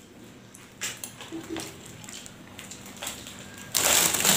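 A metal spoon clinks faintly a few times against a ceramic bowl of rice. Near the end a loud, dry crackling rustle starts as crisp fried krupuk crackers are handled.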